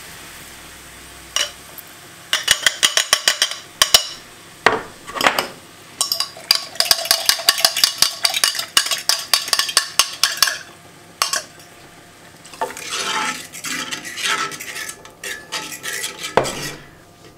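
A fork whisking cornstarch into broth in a glass measuring cup, rapid clinking against the glass several times a second, in runs from about two seconds in until past the middle. Near the end the mixture is stirred into the cream sauce in a cast-iron skillet, a quieter scraping.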